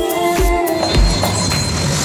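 Music with a steady beat and bass thump; the beat drops out for a moment about half a second in.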